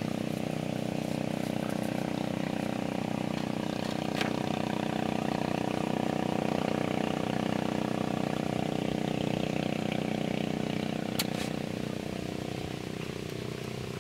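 A small engine running steadily at an even pitch, fading away over the last couple of seconds.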